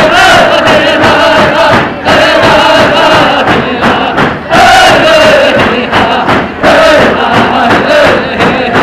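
Tlicho (Dogrib) drummers singing a drum-dance song in unison over steady beats of hand-held frame drums, with crowd voices mixed in. The song runs in phrases of about two seconds with short breaks between them.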